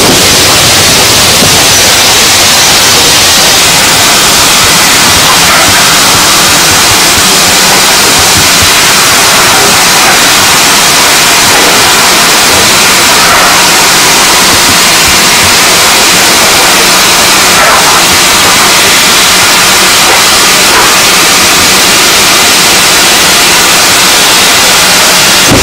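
Steam locomotive letting off steam: a loud, steady hiss.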